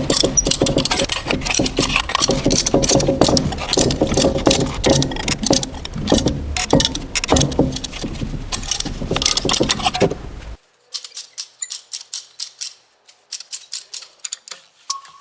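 Dense metallic clicking and rattling of hand tools and brake parts as the brake caliper is spread to push the piston back for new pads. About ten seconds in it cuts off abruptly to quiet with sparse light ticks.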